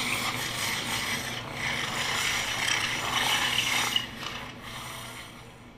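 Ice skates scraping and gliding on ice, a rasping noise that fades out near the end.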